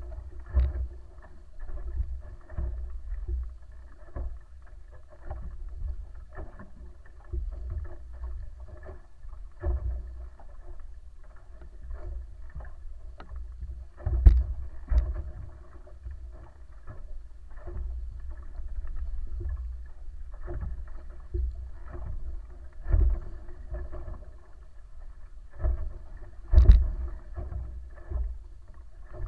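Wooden wa'apa outrigger sailing canoe under way: wind rumbling on a mast-mounted microphone and water rushing along the hulls, with a faint steady hum. Irregular thumps come through, the loudest about halfway through and near the end.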